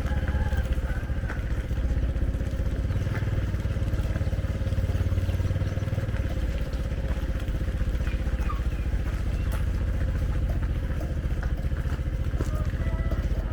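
Motorcycle engine running steadily at an even speed, a fast low pulsing with a constant hum.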